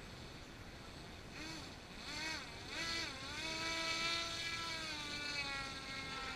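Radio-controlled model boat's motor whining over the water, coming in about a second in. Its pitch dips and rises a few times, then holds steady and slowly falls as it gets louder.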